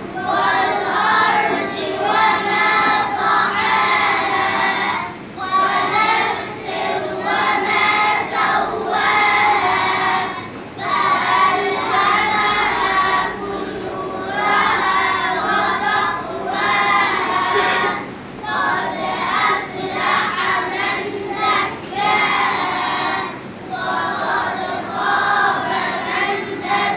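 A group of young children singing together in phrases, with short breaks between them.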